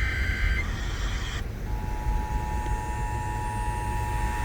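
Emergency Alert System broadcast on a car radio. The last burst of the buzzy digital header tones ends within the first second, then about a second and a half in the steady two-tone EAS attention signal starts and holds, over the car's low road rumble. The attention signal introduces a tornado warning.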